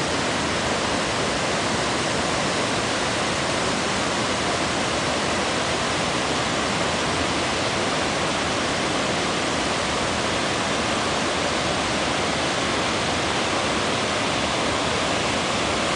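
Water rushing steadily over a river waterfall, an unbroken even rush with no other sounds standing out.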